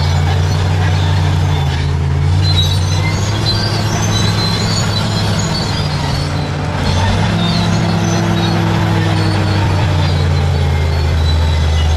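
Bulldozer's diesel engine running steadily under load, its note shifting slightly a couple of times, with scattered high metallic squeaks.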